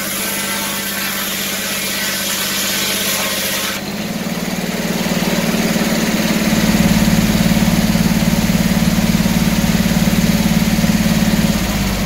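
Circular sawmill blade cutting through an oak board, a hissing whine that stops abruptly about four seconds in as the cut ends. The mill's engine and the free-spinning blade run on steadily, the hum growing louder midway.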